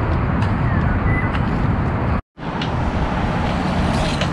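Steady outdoor rumble, strongest in the low end, with a few faint ticks and one short high whistle about a second in; the sound cuts out completely for a moment just after two seconds in, then resumes.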